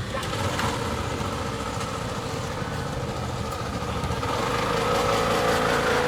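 A vehicle's steady engine drone holding two pitches, growing a little louder toward the end.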